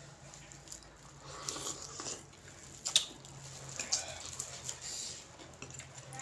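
A person eating rice noodles from a bowl: a spoon clinking and scraping against the bowl, with slurping and chewing. One sharp clink about three seconds in is the loudest sound.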